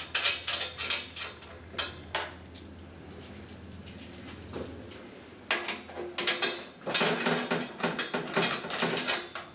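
Metal nuts, bolts and frame parts clinking and clanking as they are handled and fitted by hand, a quick string of sharp knocks.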